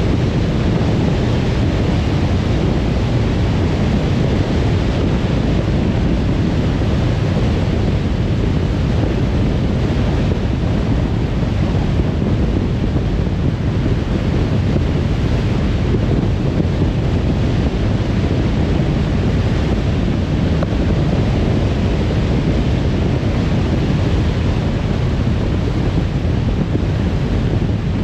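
Steady road noise of a car driving at speed: tyre roar and wind rush at an even level.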